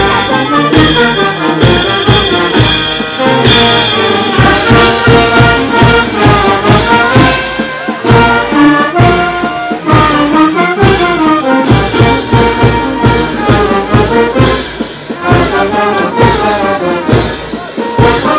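Brass band with trumpets playing a Negritos dance tune over a steady beat.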